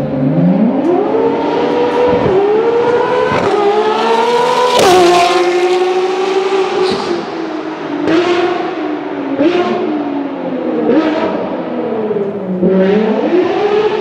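Race car engine accelerating hard through the gears: its pitch climbs, then drops sharply at each upshift with a crack, and near the end it falls away low and pulls up again.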